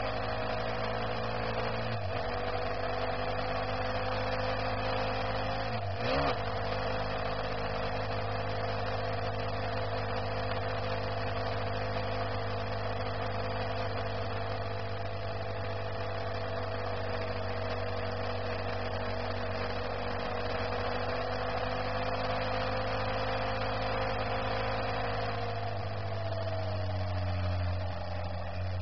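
Car engine and road noise heard from inside the cabin while driving, with a steady engine note. It breaks briefly about 2 and 6 seconds in, and its pitch falls near the end.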